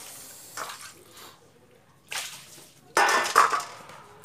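Water sloshing and splashing in a steel basin as raw chicken pieces are washed by hand, in short bursts, with the loudest splash about three seconds in.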